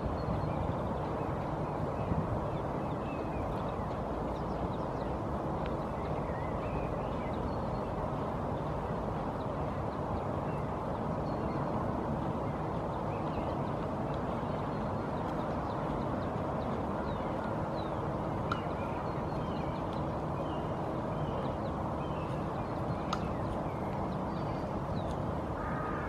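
Steady outdoor background rumble, with faint, brief chirps of small birds now and then.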